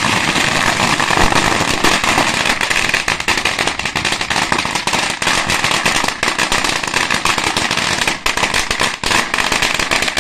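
A long string of firecrackers going off in a dense, rapid crackle of bangs, thinning into more separate pops in the second half.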